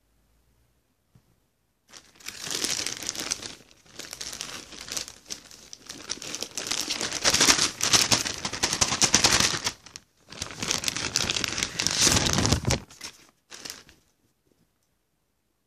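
Packaging wrapping being handled and pulled open, in several bursts from about two seconds in until near the end, with brief pauses between them.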